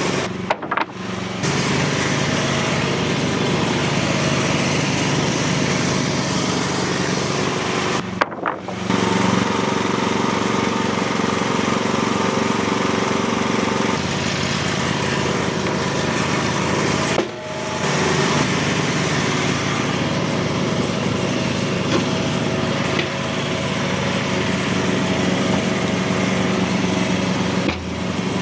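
Portable bandsaw sawmill with a small gasoline engine running steadily as the blade saws boards from a tulip poplar log. Short, abrupt breaks about every nine seconds.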